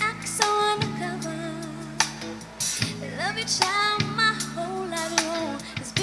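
A song with a female lead vocal and sharp drum hits, played through a pair of JVC SP-UXL5-B mini bookshelf speakers with bass boost off and picked up by a microphone in the room.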